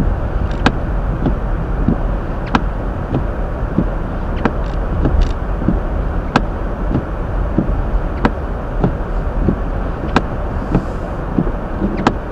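Steady low road and tyre rumble inside a Hyundai Elantra driving slowly on a snow-covered road, with a sharp click about every two seconds.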